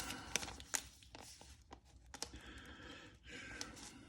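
Trading cards being handled and slid through the hands: faint rustling with a few light clicks of card edges.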